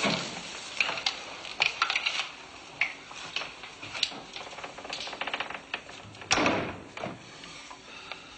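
Irregular metallic clicks and clanks from a submarine's watertight hatch being worked, with a quick rattle about five seconds in and a louder rush about six seconds in.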